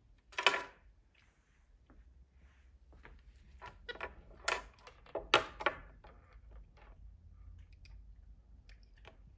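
A loud knock about half a second in, then a run of sharp clicks and knocks from a capuchin monkey handling a plastic power adapter and its cords on a wooden nightstand.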